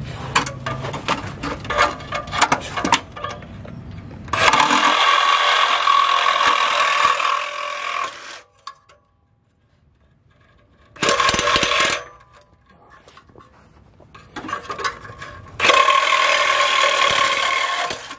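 Handheld power tool cutting at the rear muffler's hanger under a Lexus LS400, running in three steady bursts with a whining tone: a long one of about four seconds, a short one of about a second, then one of about two and a half seconds. Scattered clicks and rattles come before the first burst as the tool is set against the hanger.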